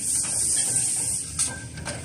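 Filter pleating machine running: a steady high hiss over a low mechanical rumble, with a sharp knock about a second and a half in. The hiss drops off at that point.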